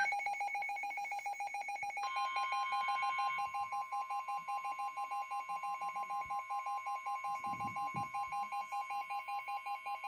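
Emergency alert attention tone: an electronic tone pulsing several times a second, joined about two seconds in by a second, steady higher tone. Both cut off together near the end, the alarm that precedes a severe thunderstorm warning broadcast.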